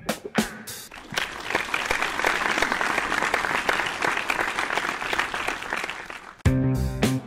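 Audience applause, a dense patter of many clapping hands that swells about a second in and dies away near the end. Music with bass and guitar starts up again just before the end.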